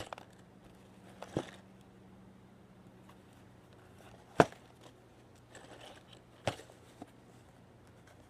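Cardboard LEGO set box being handled, turned over and set down on a tabletop: a few sharp knocks, the loudest about four seconds in, with a brief rustle of cardboard between them. A faint low hum runs underneath.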